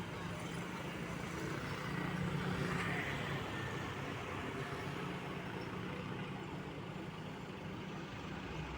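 Truck engine running steadily, getting a little louder for a moment about two to three seconds in.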